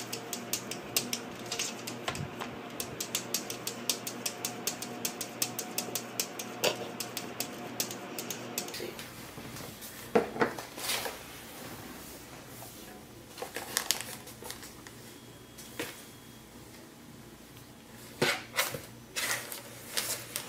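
Quick, light tapping and clicking as a kitten paws at a mirror. After about nine seconds this gives way to irregular scratching and rustling from a kitten moving inside a cardboard tissue box, with louder scrapes about ten seconds in and again near the end.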